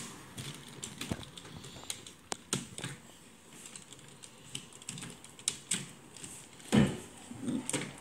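Scattered light plastic clicks and taps as a Rubik's cube is handled and pushed onto the Lego robot's motor shafts, with one louder knock near the end.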